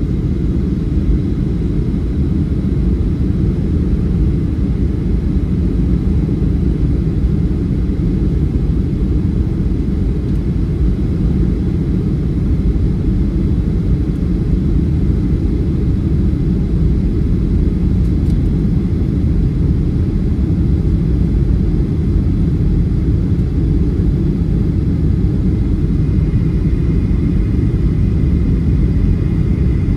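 Steady cabin noise inside a Boeing 737 airliner on its approach: an even, low rumble of engines and rushing air, with a faint high whine running through it that grows a little stronger near the end.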